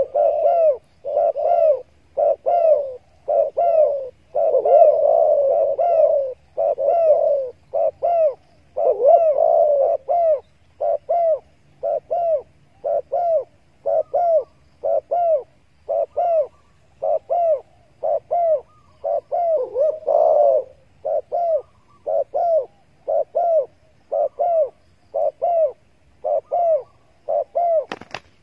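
Spotted doves cooing, a steady run of short rising-and-falling coos about one a second that run together in places. A single sharp click near the end.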